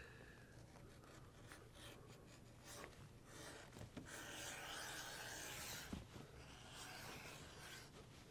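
Faint scraping of a No. 3 leather edger shaving the corner off the edge of a thick latigo strap, a few small clicks among the strokes. The scrape is louder and continuous from about four to six seconds in.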